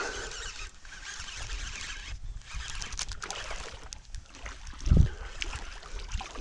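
Wind buffeting the microphone as a low rumble with a light rustling hiss over it, and one louder low thump about five seconds in.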